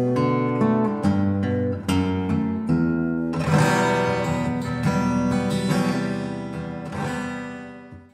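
Instrumental acoustic guitar music with plucked and strummed notes, fading out near the end.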